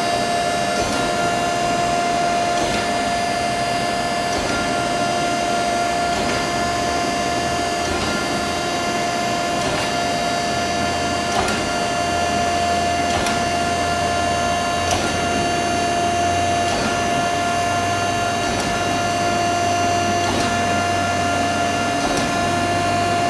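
Okamoto horizontal spindle surface grinder running, a steady whine with several higher tones over machine noise. A faint tick comes about every one and a half to two seconds.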